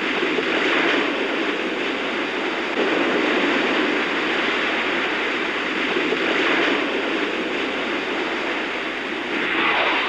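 Hurricane wind blowing hard, a steady rushing roar that swells and eases every few seconds.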